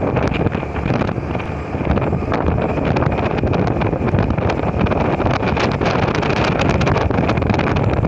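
Heavy wind buffeting the microphone on a moving motorcycle, with the motorcycle's running and road noise underneath.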